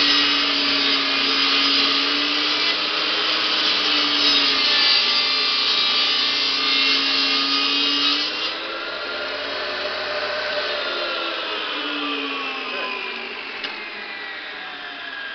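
Benchtop table saw ripping a board of vertical grain fir along its length: a loud cutting hiss over the motor's whine, which wavers in pitch as the feed loads the blade. The cut ends about eight seconds in, and the saw then runs free and winds down with a falling whine.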